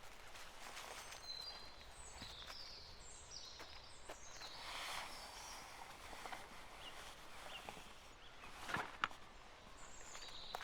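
Birds chirping in short high calls over quiet outdoor ambience, with scattered light clicks and knocks and a louder double knock about nine seconds in.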